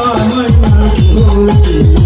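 Live Baul folk music: a man singing through a microphone over a drum beating deep strokes that fall in pitch, about four a second, with a long held note from about a second in.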